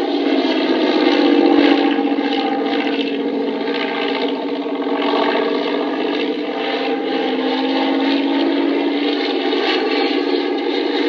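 A large engine drones steadily, its pitch wavering slightly up and down.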